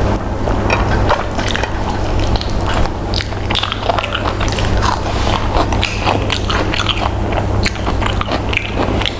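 A person biting and chewing fried chicken close to the microphone: irregular wet smacks and clicks of eating, over a steady low background hum.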